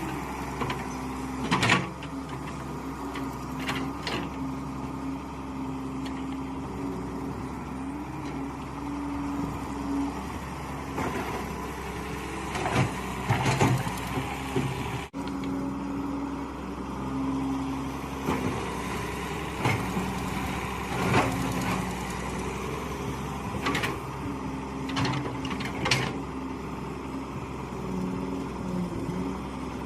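Mini excavator's diesel engine running steadily, its note shifting slightly as the hydraulics take load. It is broken by sharp knocks and scrapes every few seconds as the bucket digs.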